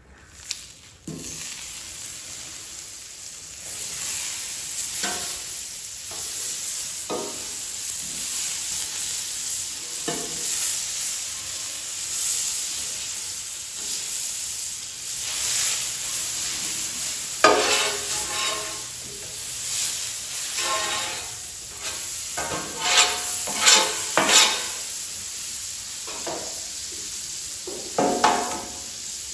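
Butter sizzling on the hot steel plate of a Blackstone flat-top griddle, the hiss coming up about a second in. A metal spatula scrapes across the plate in short strokes, louder and closer together in the second half.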